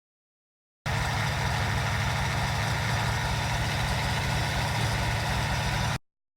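An engine idling steadily with a fast, even low pulse, starting and cutting off abruptly.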